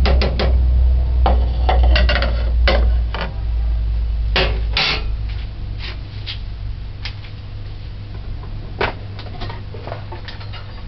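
Kitchen utensils clinking and knocking against a metal cooking pot and dishes: scattered sharp clicks, busiest in the first five seconds and sparser after, with a single louder knock near the end, over a steady low hum.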